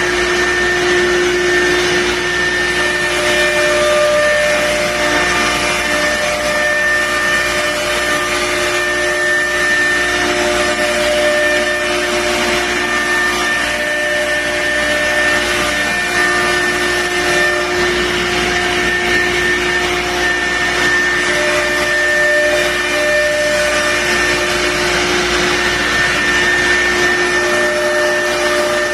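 Wood CNC router running steadily: an even hiss with a few high held whining tones from the spindle, some fading in and out.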